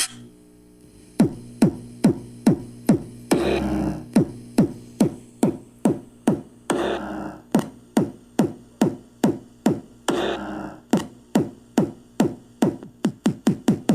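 Electronic dance music with a drum-machine beat, played loud through a homemade miniature sound car's speakers: sharp drum hits that drop quickly in pitch, about two a second, starting about a second in and quickening into a fast roll near the end.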